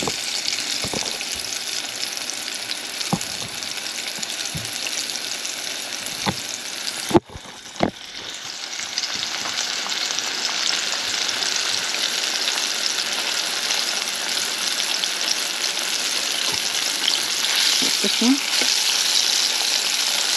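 Battered lobster pieces deep-frying in hot oil in a small pan: a steady crackling sizzle with a few faint clicks. The sound drops out for a moment about seven seconds in, then builds back.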